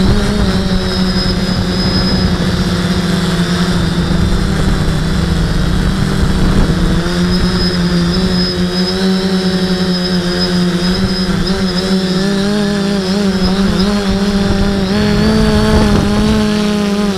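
Motor and propeller drone of a small camera-carrying model aircraft in flight: a steady hum with a wavering higher whine over it, and wind buffeting on the microphone.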